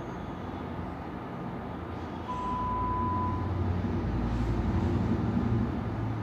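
Steady low background rumble, like a running vehicle, that grows louder about two seconds in. A single steady high beep sounds over it for about a second.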